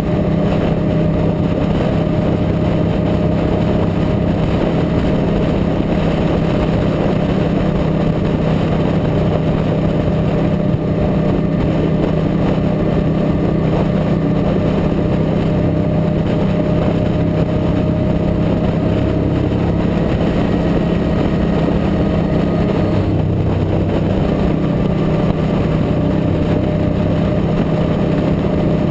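Suzuki Boulevard M109R V-twin cruiser running steadily at highway cruising speed, its engine drone holding a constant pitch, under heavy wind rush on the bike-mounted microphone.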